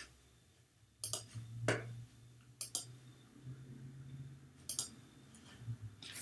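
Faint computer mouse clicks, a handful of them, some in quick pairs, over a low steady hum.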